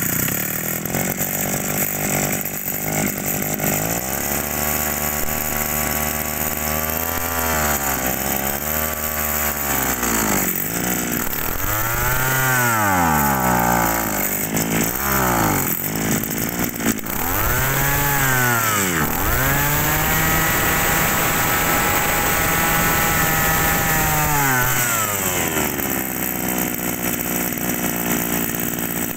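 Shindaiwa two-stroke brush-cutter engine running. It idles, is revved up and down several times, is held at high revs for a few seconds, and then drops back to idle near the end.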